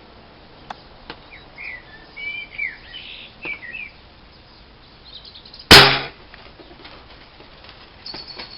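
A single shot from an Air Arms TX200 spring-piston air rifle, a sharp loud crack a little under six seconds in. Before it, small birds chirp in short high calls.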